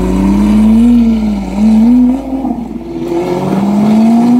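Lamborghini supercar engine with a modified exhaust, revving: its pitch rises and falls a few times in the first half, then climbs steadily through the second half.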